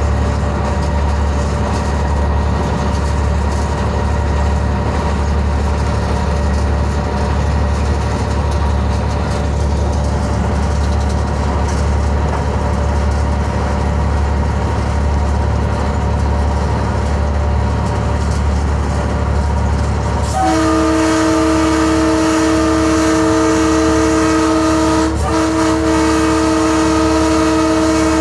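GMCU-15 diesel-electric locomotive running with a steady low engine drone, heard from the cab. About two-thirds of the way through, its multi-tone air horn starts and sounds long and steady, with one brief break.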